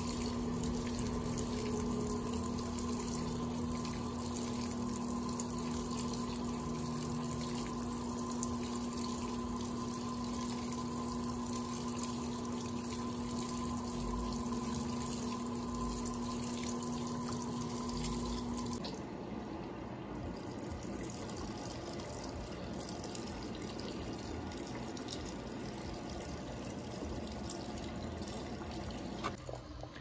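Electrolux Turbo AquaJet LTA15 washing machine filling its tub with water, a steady rush of running water with a steady hum over it. About two-thirds of the way in the hum stops and the water sound carries on a little softer.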